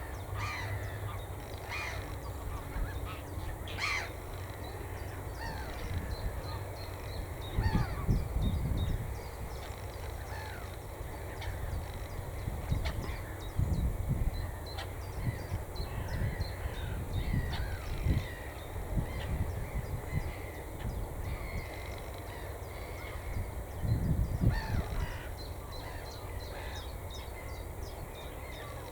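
Many birds of a flock calling continually, short calls overlapping one another, with a few bursts of low rumble about a quarter of the way in, in the middle and near the end.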